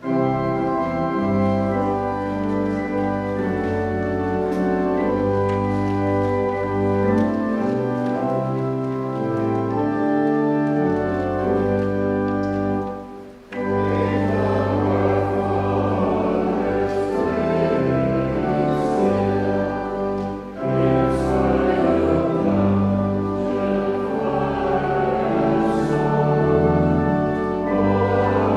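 Church organ playing a hymn with sustained chords over deep bass notes, joined by choir singing, with a short pause about thirteen seconds in.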